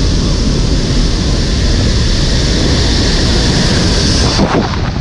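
Loud, steady noise of a military transport aircraft's engines and the airstream inside the cargo hold with the jump door open. About four seconds in it changes abruptly into gusting wind buffeting the microphone as the paratrooper exits the aircraft.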